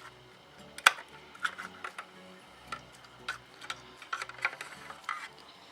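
A flathead screwdriver prying a circuit board out of the plastic housing of a C5 Corvette climate control unit: a string of light, irregular clicks and ticks, with one sharper click about a second in.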